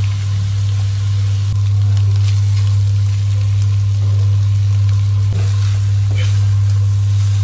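Vegetables and meat sizzling in a steel wok over a gas burner, stirred and tossed with a steel spatula, with noodles tipped in from a colander partway through. A loud, steady low hum sits under the frying and is the loudest thing heard.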